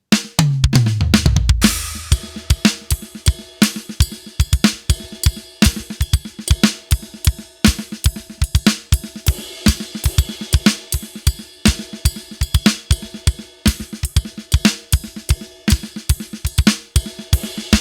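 Drum kit playing a 4/4 groove built from repeating groups of three sixteenth notes at 120 BPM: ride cymbal with the kick drum leading each group, snare ghost notes between, and snare backbeats on beats 2 and 4. It opens with a short flurry of hits before the steady pattern settles in.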